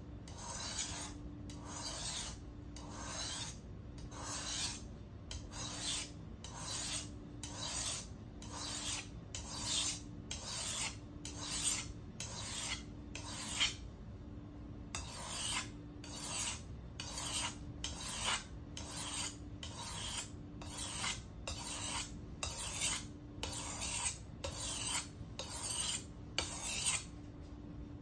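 Steel kitchen knife blade drawn across a whetstone in regular scraping strokes, just over one a second. The strokes stop briefly about halfway through, then resume at the same pace.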